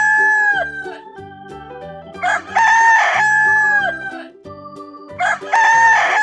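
Rooster crowing repeatedly, about one long cock-a-doodle-doo every three seconds, each ending on a falling note. Light keyboard background music plays underneath.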